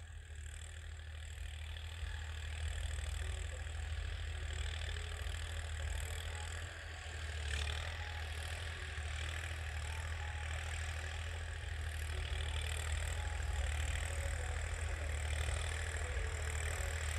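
New Holland 3037 tractor's diesel engine running steadily in the distance as it pulls a tiller across the field.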